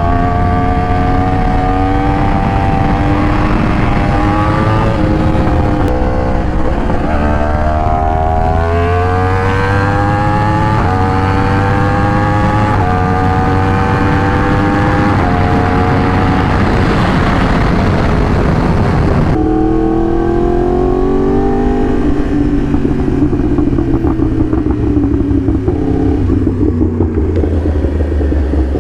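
Yamaha R1 inline-four sport bike engine through a titanium Racefit half-system exhaust, heard while riding. It accelerates through several gears, the pitch climbing and dropping back at each upshift. Near two-thirds of the way through it changes abruptly and the engine winds down as the bike slows.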